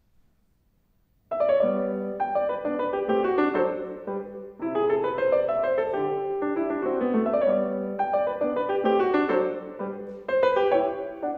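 Solo grand piano beginning a classical piece about a second in after silence, played in phrases of moderate pace with short breaths between them.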